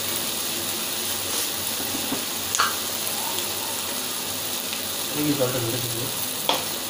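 Capsicum and onion frying in a kadai: a steady sizzling hiss, with a sharp click about two and a half seconds in and another near the end.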